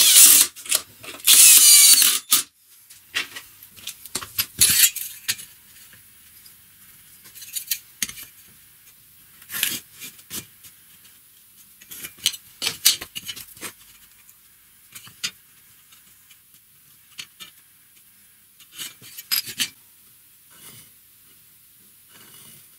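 Cordless drill driving a long wood screw into pine, in two short runs during the first two and a half seconds. Then scattered light knocks, taps and scrapes of wooden blocks and hand tools being handled and marked out.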